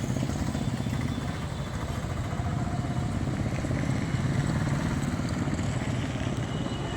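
An engine running steadily, with a low, fast, even beat.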